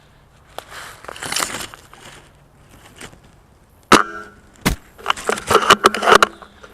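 A shot from a spring-powered VSR10 airsoft sniper rifle: a sharp clack with a short ringing twang of the spring. It is followed by another sharp click and a quick run of clicks and rattles as the bolt is worked. Brief rustling about a second in.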